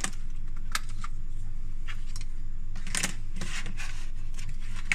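LEGO Technic plastic panels and pins being unclipped and handled: a few sharp plastic clicks and light rattles, the busiest about three seconds in, over a steady low hum.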